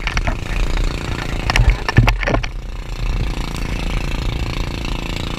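Wind rumbling on the microphone and water rushing and splashing as an inflatable banana boat is towed at speed over choppy sea, with a few sharper splashes or knocks about two seconds in.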